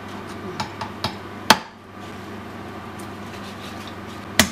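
A large kitchen knife chopping a whole cooked chicken on a wooden cutting board: two loud, sharp chops, one about a second and a half in and one near the end, with a few lighter knocks of the blade before the first.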